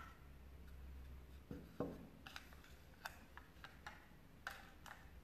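Near silence with a few faint, scattered light clicks of a metal spoon against a ceramic bowl as powder is spooned in.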